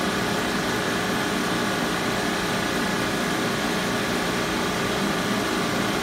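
Air-conditioning equipment running with a steady mechanical hum: a few constant tones over an even hiss, unchanging in level.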